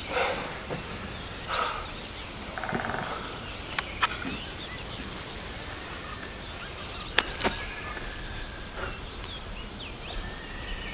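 Tropical forest ambience: a steady high insect drone over a soft background, with brief rustles near the start and a few sharp clicks about four and seven seconds in.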